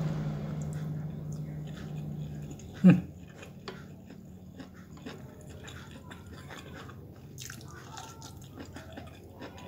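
Chewing and small wet mouth clicks of someone eating rice and boiled eggplant by hand. A steady low hum runs for the first two and a half seconds, and a short loud vocal sound comes just before three seconds in.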